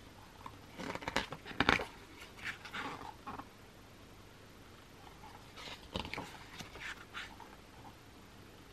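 Pages of a thick album photobook being turned by hand: two spells of paper rustling and crackling, about a second in and about six seconds in, the first the louder.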